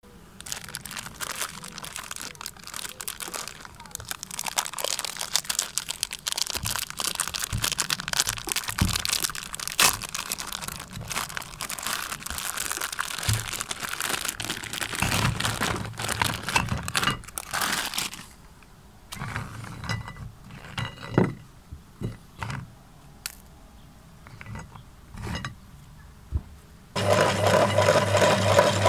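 Plastic cookie wrapper crinkling and crackling as a packet of biscuits is torn open and unwrapped, followed by scattered clicks as the hard biscuits are set down on a porcelain plate. Near the end a loud steady humming sound comes in suddenly.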